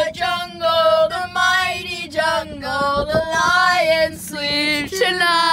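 A high voice singing unaccompanied, in held notes strung into phrases about a second long with short breaks between them.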